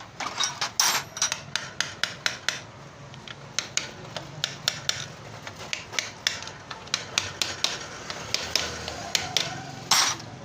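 Metal hand tools and small engine parts clicking and clinking: a long run of sharp, irregular clicks, several a second, with a louder scrape near the end.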